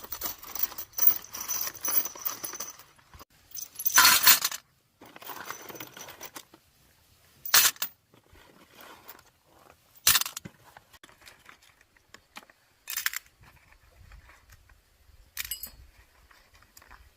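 Small metal parts and tools clinking and clattering as they are handled: a rattling stretch at first, a louder clatter about four seconds in, then a few single sharp clicks spaced a few seconds apart.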